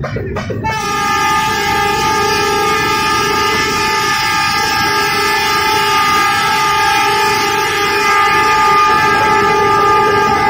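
Diesel locomotive horn blown in one long, unbroken blast that starts under a second in and holds steady throughout.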